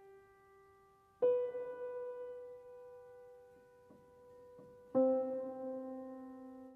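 Intro jingle of sustained keyboard chords. A new chord is struck about a second in and another about five seconds in, each ringing on and slowly fading.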